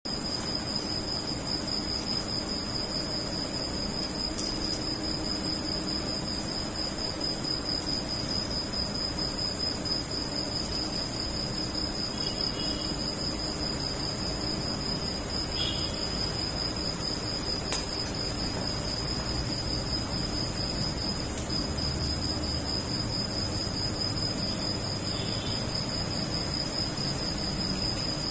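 Insects trilling steadily: a continuous, high-pitched, finely pulsing chorus that does not let up.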